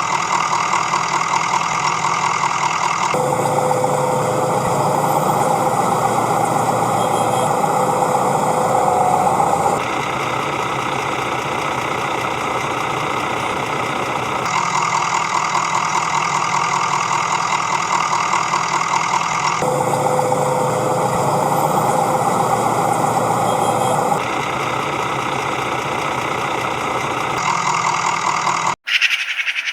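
Engine sound effect of a truck or earthmover idling with a fast, even chugging, changing character every few seconds in a repeating pattern, and cutting off abruptly near the end.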